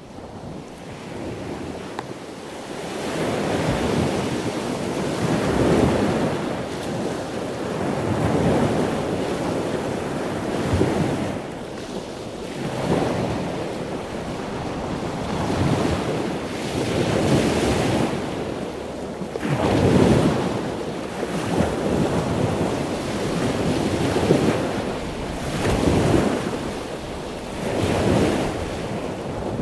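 Ocean waves breaking and washing on the shore, rising and falling in a slow rhythm every few seconds, with some wind noise on the microphone.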